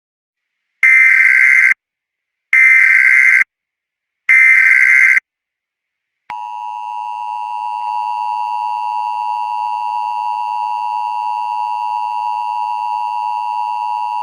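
Emergency Alert System signal: three short bursts of SAME header data tones, about a second each with short gaps between, then about six seconds in the steady two-tone EAS attention signal begins.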